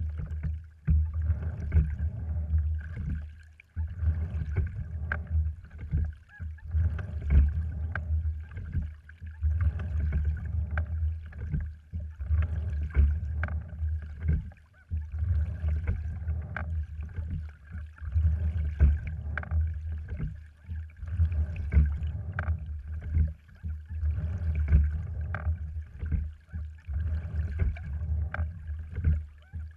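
Skin-on-frame rowing wherry under way: a low rumble of water along the hull that surges and fades with each oar stroke, about once every two and a half to three seconds, with sharp clicks and knocks from the oars working in the oarlocks.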